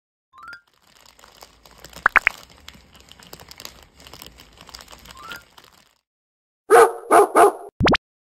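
Campfire crackling for about five seconds, a fine hiss with scattered pops. Near the end come three quick dog barks, then a short low thud.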